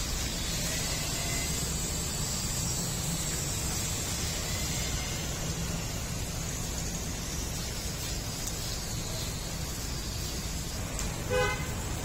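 Steady low traffic rumble and hiss from the street, with one short vehicle horn toot near the end.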